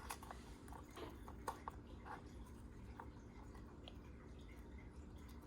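Faint scattered clicks and light taps of small parts and tools being handled, over a low steady hum. The clicks stop after about three seconds.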